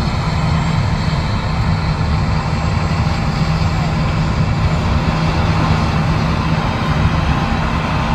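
Heavy harvest machinery running steadily: a constant low engine drone with a thin steady whine above it.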